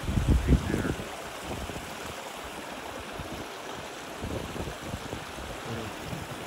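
Water running steadily through a beaver dam and road culvert, an even rushing sound, with a few low thumps in the first second.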